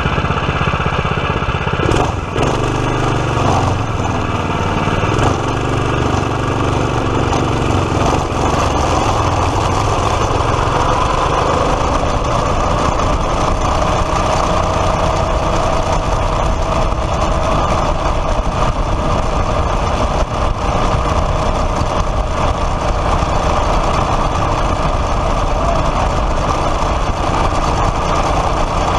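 Small gasoline kart engine running continuously, its pitch shifting over the first several seconds and then settling to a steady drone.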